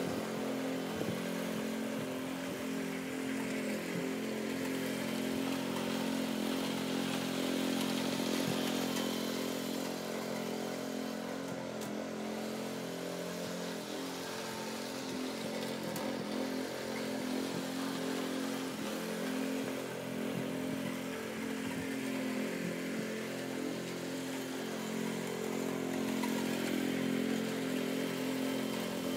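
Riding lawn tractor's small engine running steadily as it drives across the lawn towing a broadcast spreader, a little fainter in the middle and nearer again near the end.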